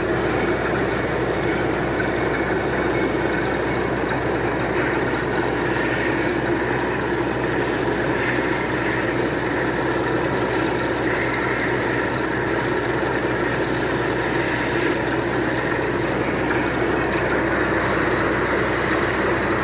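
Drilling rig boring into rock, its engine and drill running steadily under load as one continuous machinery noise.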